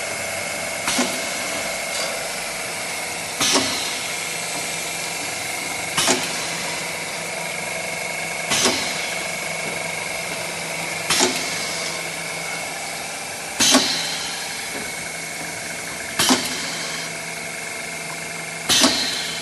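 Vertical paste form-fill-seal packaging machine running through its bag cycle: a steady hum with a constant high whine, and a sharp clack about every two and a half seconds as it cycles, each followed by a short hiss.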